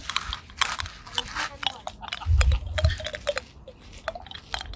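Hard candy lollipop being bitten and chewed close to the microphone for candy ASMR: a stream of sharp crackling clicks and crunches, with a low thump a little past two seconds in.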